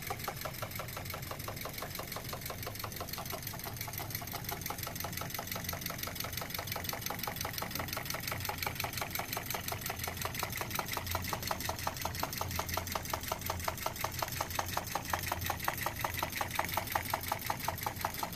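Homemade Stirling engine, built from aluminium-can cylinders with a steel-wire crankshaft and connecting rods and a compact-disc flywheel, running steadily on its heat source. It gives a rapid, even ticking, several ticks a second, that keeps a steady pace.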